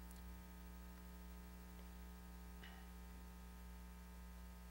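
Near silence: a low, steady electrical mains hum, with one faint tick about two and a half seconds in.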